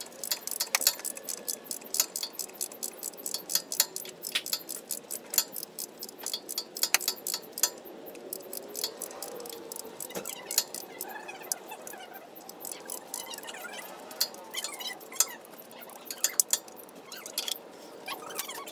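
A wrench on a torque converter bolt, giving quick runs of sharp metal clicks and clinks as the bolt is worked loose. The clicks are densest in the first half and come more sparsely later.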